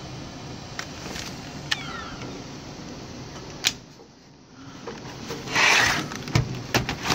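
A Dell Latitude C600 laptop's lid snapping shut with a sharp click about halfway through, then the laptop being grabbed and turned over on a desk: a loud scrape followed by a few knocks as it is set down.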